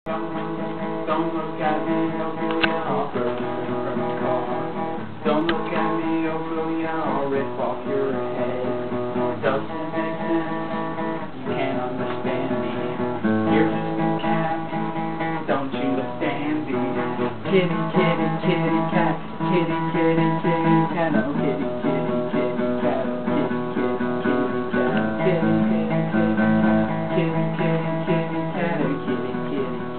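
Guitar being strummed, playing chords that change every few seconds.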